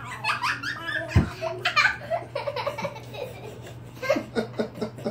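A young child laughing in short bursts, with one low thump about a second in, over a steady low hum.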